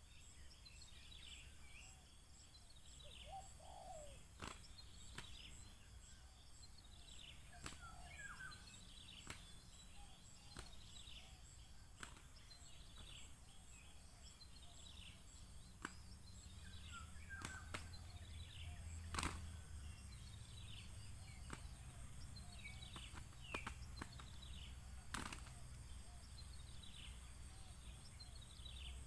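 Birds calling faintly outdoors: many short, high, falling chirps scattered throughout, with a sharp click now and then over a steady low rumble.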